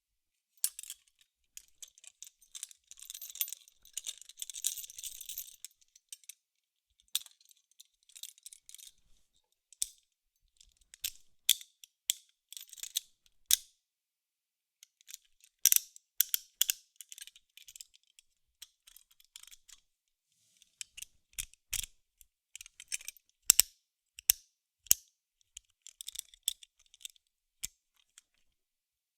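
Metal handcuffs being handled: bursts of chain rattling and jingling, and the clicking of the ratchet as the cuffs are closed, with a few sharper knocks in the second half, each burst separated by a short silence.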